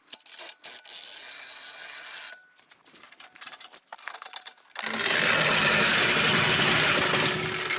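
Hand-cranked winch mechanism clicking and rattling like a ratchet as it spins, then a steady rushing whir from about five seconds in.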